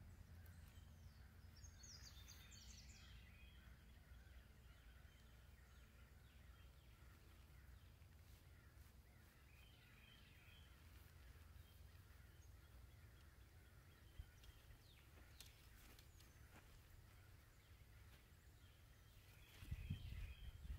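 Near silence: quiet outdoor ambience with faint bird chirps a couple of times, and a brief low rumble near the end.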